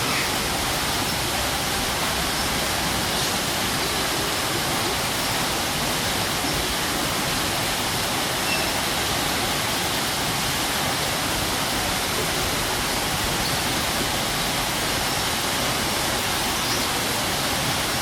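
Strong waterfall, water pouring and crashing in a steady, even rush.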